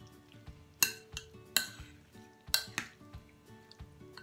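Metal spoon clinking and scraping against a ceramic bowl as a sausage salad is tossed in its dressing: a few irregular sharp clinks and short scrapes, over soft background music.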